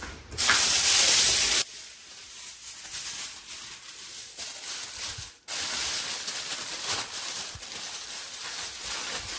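Aluminium foil rustling and crinkling as it is spread and pressed over a baking dish, with a loud burst of rustling about half a second in.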